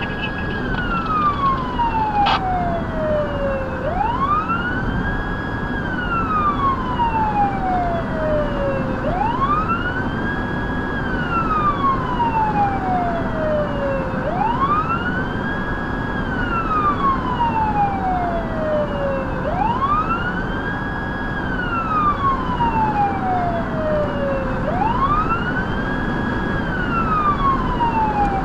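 Federal Signal Touchmaster Delta electronic siren sounding a wail, heard from inside the vehicle it is mounted on, over steady road noise. Each cycle rises quickly, holds at the top and falls slowly, repeating about every five seconds. A single click comes about two seconds in.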